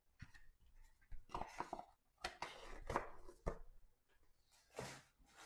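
Handling of an emptied cardboard trading-card hobby box with its foam insert: a run of short scrapes, rustles and light taps, in small clusters with brief quiet gaps.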